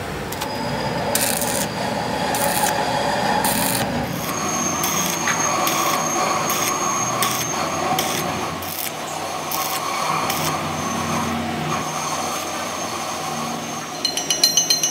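Electric arc welding on a steel rear axle shaft flange: a steady crackling sizzle from the arc. In the last second it gives way to a rapid run of sharp metallic taps from a chipping hammer knocking at the weld.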